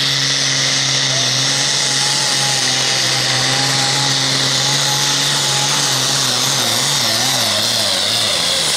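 International Harvester pulling tractor's turbocharged diesel engine running at full throttle under heavy load as it drags the weight sled, with a high whine over the engine note. The engine note wavers up and down over the last few seconds.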